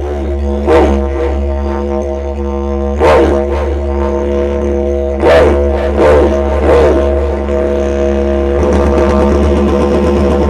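Didgeridoo soundtrack music: a steady low drone with overtones, broken by several sharp accented whoops in the first seven seconds, then settling into a faster pulsing rhythm from about two-thirds of the way in.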